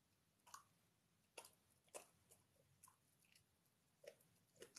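A fox terrier eating from a bowl: faint, irregular chewing with short crunches and clicks, about eight in all, unevenly spaced.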